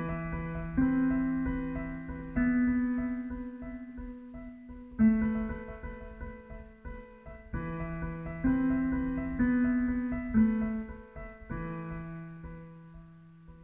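An 88-key piano playing a slow piece: chords struck every second or two, each ringing on and fading before the next.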